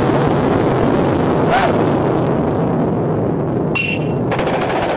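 Steady, loud rumble of a large explosion's fireball, with a cluster of sharp cracks near the end.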